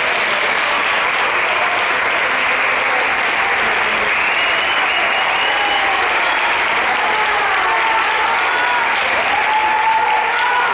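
Audience applauding steadily at the end of a dance performance, with a few voices calling out over the clapping from about halfway through.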